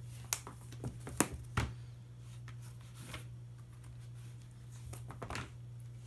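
A cat scratching and picking at the edge of an interlocking foam floor mat: a series of short, sharp scratchy snaps and rustles, clustered in the first two seconds and again around five seconds in.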